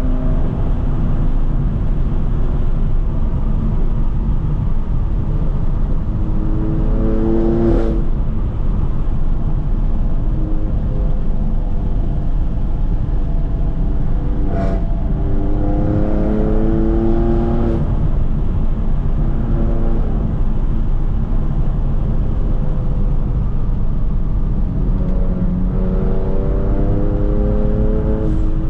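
Straight-piped BMW F80 M3's twin-turbo inline-six running loud under way, pulling hard three times with the pitch climbing on each. Short sharp pops come as the pulls end at the shifts.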